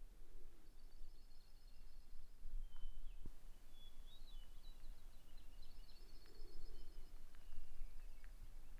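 Small songbirds singing: a high, fast trill of evenly repeated notes comes twice, with shorter chirps and whistled sweeps between, over a low wind rumble on the microphone.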